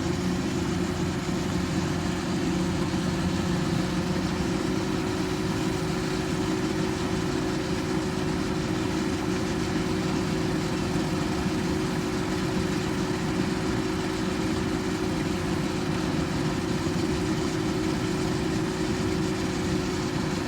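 Kubota rice harvester's engine running steadily, with an unchanging hum.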